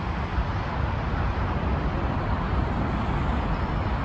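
Steady distant roar of a Boeing 777-300ER's GE90 engines as the airliner rolls out on the runway after landing, with a fluttering low rumble underneath.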